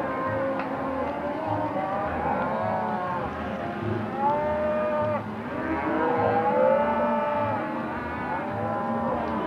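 A herd of cattle mooing, many calls overlapping with rising and falling pitch, over a low, evenly pulsing hum.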